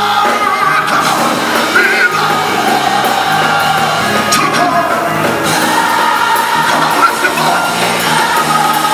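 Live gospel band playing: drum kit, electric bass and organ, with a voice singing over it.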